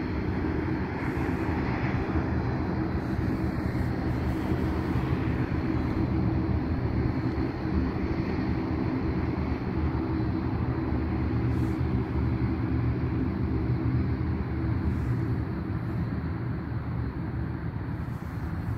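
Airliner's jet engines running as it rolls along the runway, a steady low rumble that holds throughout.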